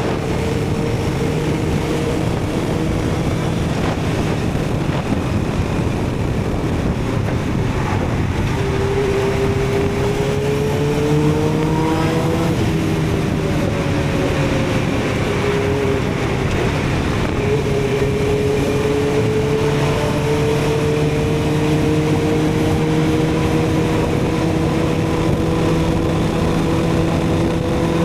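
Suzuki GSX-R750 inline-four with a Yoshimura TRS exhaust, running at steady riding speed under heavy wind rush. The engine pitch dips briefly a few times around the middle, then climbs slowly toward the end as the bike gathers speed.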